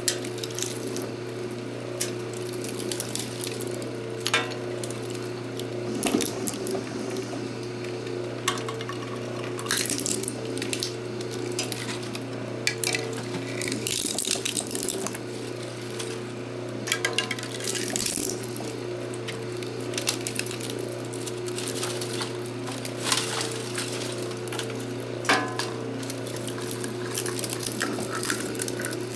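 Small twin-shaft shredder running with a steady electric-motor hum while its cutter blades chew through 3D-printed plastic supports and failed prints, with irregular sharp cracks and clatters as pieces snap.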